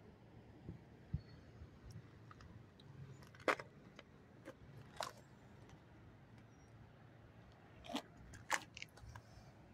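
Handling noise from a handheld phone: a few scattered sharp clicks and crackles over a faint low background hum.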